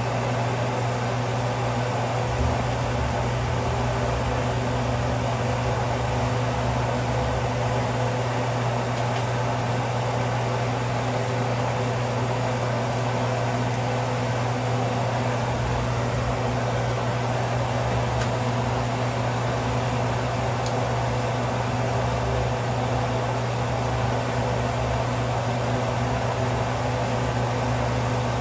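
Steady mechanical hum of a running fan or motor, an even noise with a low drone.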